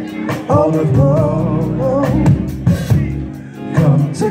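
Live band music: electric bass and drums, with a wavering melody line over them for the first half, and a brief dip in the music about three and a half seconds in.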